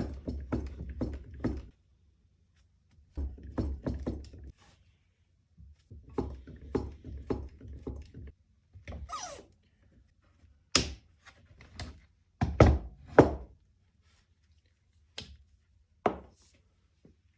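TEMCo TH1818 hydraulic crimping tool being worked to crimp a heavy-gauge lug: three runs of quick clicks and knocks from the pumped handles, then several separate louder knocks.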